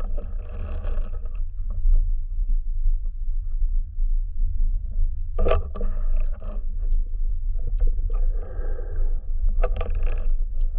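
Muffled underwater rumble from a camera held underwater, with two rushing sounds of about a second each, at the start and about eight seconds in, and a few sharp clicks, the clearest about five and a half and ten seconds in.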